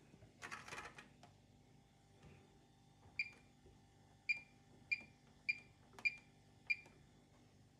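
Bosch WAQ28470GB washing machine control panel: a short clicking rattle about half a second in as the programme dial is turned, then six short high-pitched beeps, one for each press of the spin-speed button as it steps through the speed settings.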